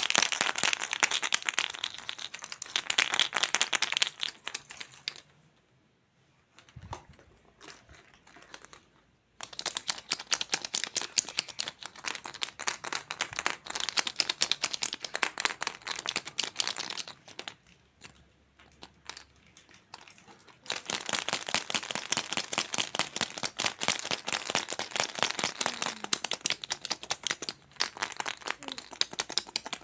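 Plastic crinkling and crackling as it is handled, in three long spells of dense rapid crackles separated by quieter pauses.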